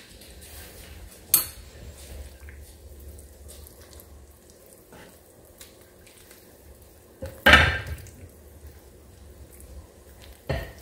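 A metal spoon stirring chicken into dumplings in a stone-coated pan, with a sharp clink about a second in, a louder knock and scrape of the spoon against the pan about seven seconds in, and another knock near the end.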